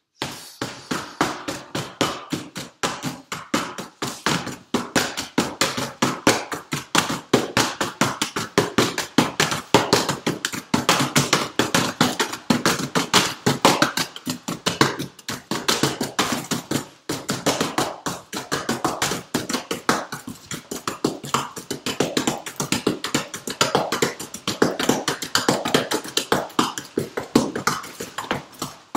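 A small knife rapidly stabbing and slashing into a thick cardboard box, a fast unbroken run of sharp thuds and tearing scrapes, several strikes a second.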